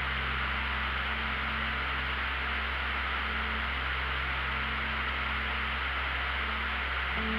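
Steady drone of a light aircraft's engine and propeller heard in the cockpit, an even rushing noise over a low constant hum, with a faint held tone coming and going.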